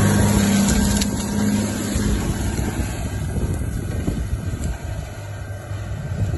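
Tractor pulling a Pöttinger Terradisc 6001T short disc harrow through sunflower stubble: a steady engine drone that fades within the first two seconds as the rig moves away, under the noisy rumble of the discs in the soil, which also grows fainter.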